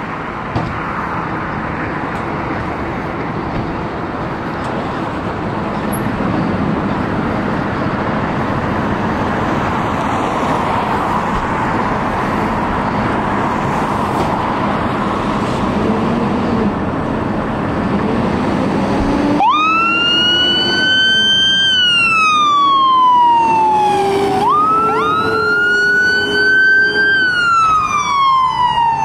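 Fire apparatus diesel engines running as the trucks pull out of the station bay. About two-thirds of the way through, an electronic siren switches on suddenly, rising quickly and then falling slowly in pitch, twice.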